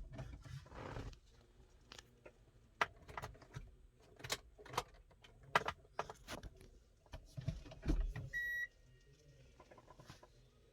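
Scattered light clicks and knocks, with one short electronic beep about eight seconds in.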